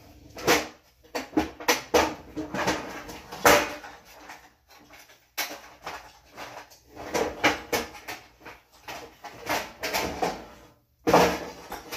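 Kitchen clatter of pots, pans and cupboard doors being handled: a run of irregular knocks and clanks.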